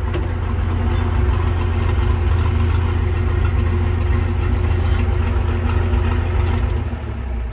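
Cummins 855 six-cylinder diesel of a Versatile 800 tractor running loud and steady with no muffler fitted. Its level drops near the end.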